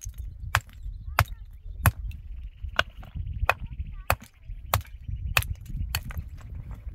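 A hammer striking a block of stone, about nine sharp blows at a steady pace of roughly one every two-thirds of a second, as the stone is dressed for a wall.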